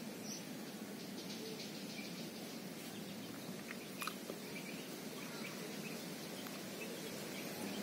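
Faint, steady outdoor background noise with a few faint short chirps and a soft click about four seconds in.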